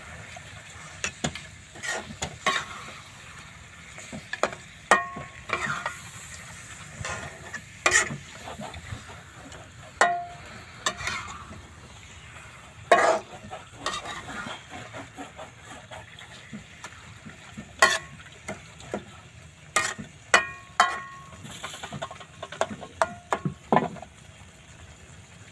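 A metal spatula scraping and clinking irregularly against an aluminium wok while stir-frying meat and vegetables. Some clinks ring briefly, over the steady hiss of the frying.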